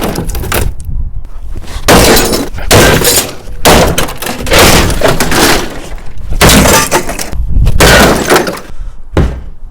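A discarded television being smashed: repeated loud crashes of breaking glass and cracking casing, about one blow a second.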